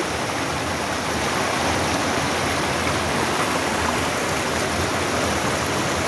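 Fast, shallow river rushing and splashing over rocks and boulders: a steady, even roar of water.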